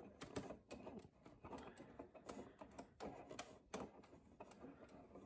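Faint, irregular clicking from the clock mechanism of a 1964 RCA Victor 4RD40 clock radio as its hands are turned forward by the setting knob.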